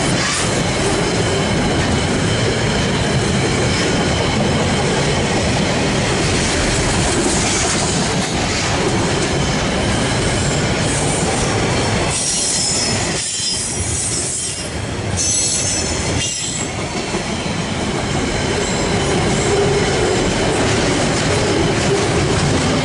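Freight train wagons rolling past close by, a steady rumble and clatter of steel wheels on rail. Brief high-pitched wheel squeals come through about halfway.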